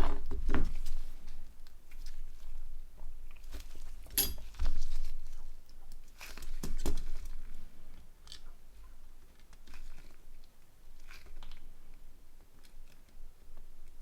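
Small plastic parts of a Nokia N80 phone being handled and fitted together: irregular clicks, taps and light crackling, with a sharp click about four seconds in and a cluster of clicks around six to seven seconds.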